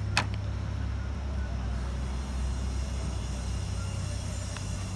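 Steady low outdoor rumble, with one sharp click just after the start.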